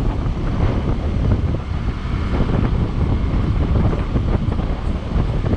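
Wind buffeting the microphone of a camera on a moving motorcycle: a steady, loud, low rumble of wind noise.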